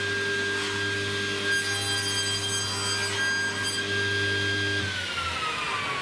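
Table saw running at a steady whine while a board is cut on a crosscut sled, then switched off, its pitch falling as the blade spins down near the end.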